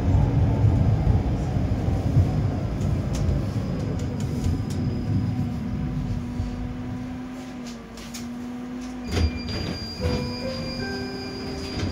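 71-931M Vityaz-M tram running on its rails and slowing, its low rumble fading away over the first eight seconds, with a steady hum underneath. About nine seconds in come a few knocks, then short electronic beeping tones.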